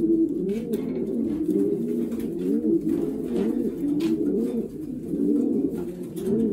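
Racing pigeons cooing in the loft, many birds at once in a continuous overlapping chorus of low, rolling coos, with a few faint clicks.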